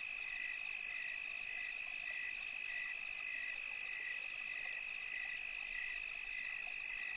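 Night chorus of small calling animals: a steady high trill with a second caller chirping evenly about twice a second.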